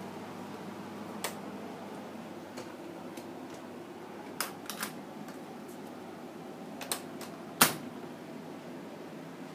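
Steady low room hum with scattered sharp clicks and taps: one early, a quick group of three about halfway, and the loudest single click near the end.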